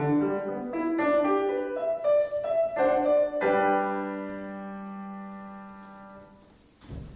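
Grand piano playing a quick passage of notes, then a final chord struck about halfway through and left to ring, fading away slowly. A brief soft knock comes just before the end.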